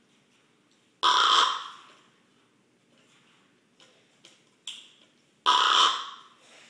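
Tame raven making its harsh, raspy snoring sound twice, each rasp lasting under a second, about four seconds apart. A few faint clicks fall between them.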